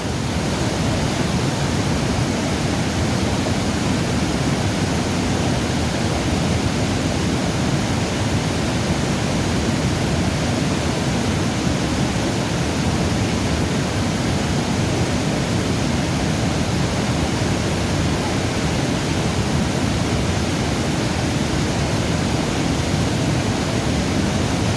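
River water rushing steadily past: a loud, even roar with no breaks.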